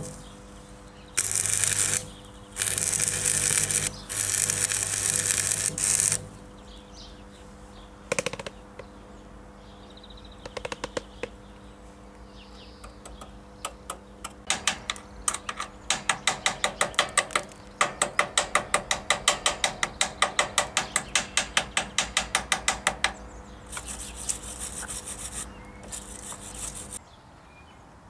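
Electric arc welding on a mower's steel axle bracket: several crackling, hissing bursts of a few seconds each with an electrical hum, stopping and restarting. Later come rapid, regular scraping strokes, about five a second, as the fresh weld is cleaned off.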